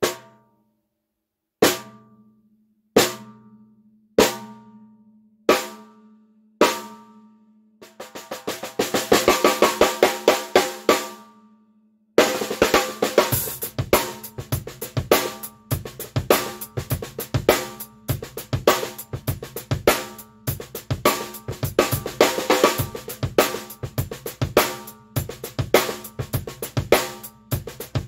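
Worldmax Black Dawg 14x5 brass-shelled snare drum, on its stock heads and untuned straight out of the box, heard through a camera microphone. It starts with six single strokes about a second apart, each left to ring, then a roll. A little before halfway the full drum kit comes in, with bass drum under the snare.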